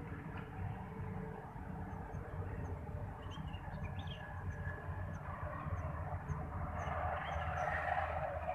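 Small birds chirping in short high notes, repeating every second or so, over a steady low rumble. A wash of noise swells near the end.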